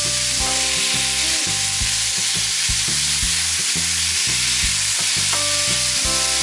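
Ground beef and onion sizzling steadily in a hot frying pan, with a wooden spoon stirring and pressing the raw meat to break up the clumps.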